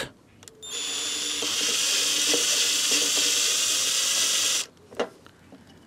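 Power drill with a universal socket running steadily for about four seconds as it unscrews a curved cup hook from a block of wood, then stopping. A light click follows.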